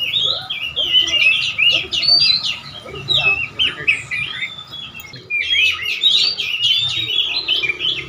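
Several caged songbirds singing at once: a dense, overlapping stream of fast, high chirps and twitters. The singing thins out briefly around the middle, then picks up again.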